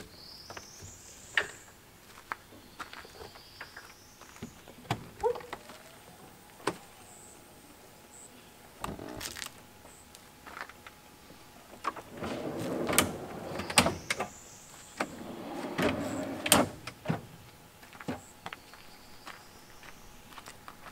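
Handling noise: a run of sharp clicks and knocks, with two longer scraping, rustling stretches about twelve and sixteen seconds in, and a few faint high rising whistles.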